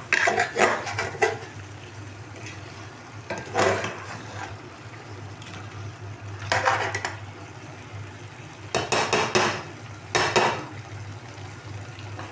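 A spoon stirring chicken and bottle gourd in a metal pot, scraping against the pot in short clusters of strokes every few seconds. A steady low hum runs underneath.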